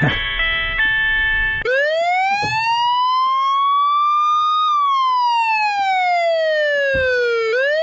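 A short musical sting, then a siren-like whistle sound effect. Its single tone rises smoothly for about three seconds, slides steadily down for about three more, and cuts off near the end.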